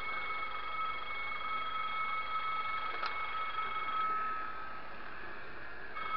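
N-scale Fleischmann model locomotives running slowly on the layout track: a steady high electric motor whine over a light running rattle, the whine dropping out for a couple of seconds near the end before returning. A single sharp click about halfway through.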